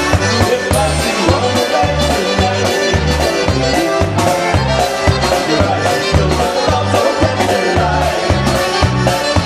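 Live polka band playing an instrumental passage: a steady oom-pah bass, about two bass notes a second, with even drum strokes under accordion melody.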